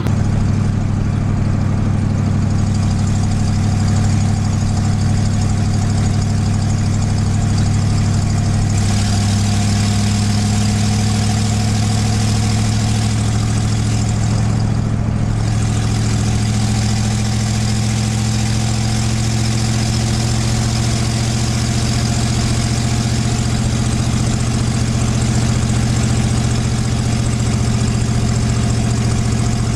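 1989 Mustang LX's 302 V8 on straight headers, running steadily while the car cruises, heard from inside the cabin. The engine note changes pitch about nine seconds in.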